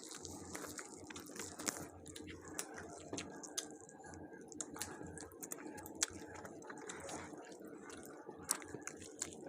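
People chewing and biting into tandoori chicken and naan: scattered small wet clicks and crunches over a steady low hum.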